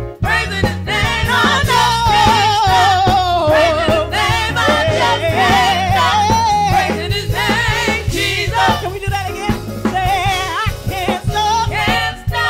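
Gospel praise-and-worship song: a singer with strong vibrato over a band with a steady bass line.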